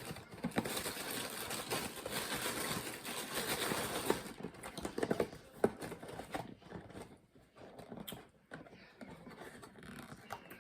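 Close-up crunching and chewing of Cap'n Crunch cereal, dense for the first four seconds, then sparser crunches and small clicks.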